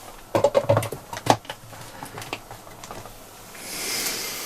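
Plastic clicks and knocks of a Milwaukee M12 battery and its charger being handled as the battery is slotted in to charge, most of them close together about a second in. A brief rushing noise swells near the end.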